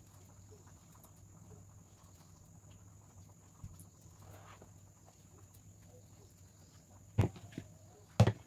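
Faint scraping and small clicks of a kitchen knife peeling a root by hand, then two sharp knocks about a second apart near the end, each with a short ring, as plastic bowls are handled on the table.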